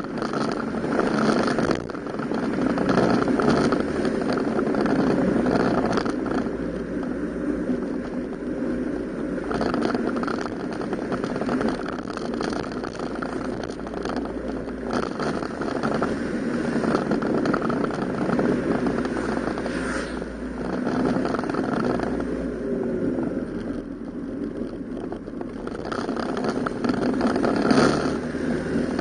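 Yamaha Cygnus X 125 cc single-cylinder four-stroke scooter running on the move, mixed with wind and road noise, the sound swelling and easing several times as the throttle opens and closes.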